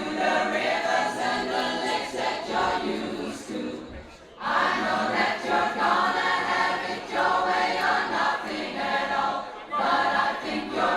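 Pop choir singing held notes together, breaking off briefly about four seconds in and again shortly before the end.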